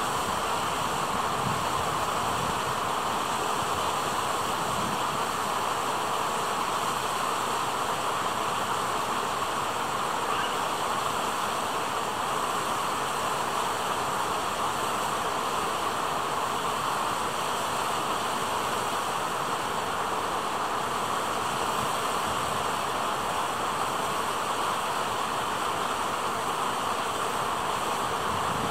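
A steady, even rushing noise of flowing water, unchanging throughout.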